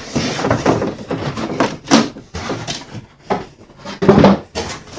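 Packaging being handled: a molded packing insert and the cardboard shipping box rustling, scraping and knocking as the insert is lifted out and hands reach into the box. The noise comes in irregular strokes, the loudest about two seconds in and just after four seconds.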